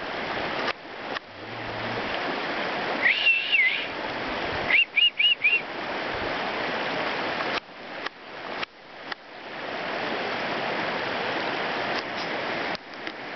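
Steady rushing outdoor noise, broken by several brief dips, with a short bending whistled phrase about 3 s in and four quick rising whistled notes about 5 s in.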